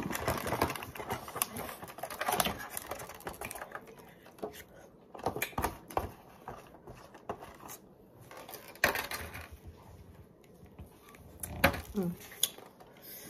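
Clear plastic clamshell food container crinkling and clicking as it is handled and emptied, with irregular taps of fruit pieces landing on a paper plate.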